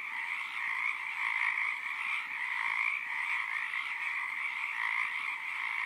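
A dense chorus of frogs calling: a steady, unbroken din with no pauses.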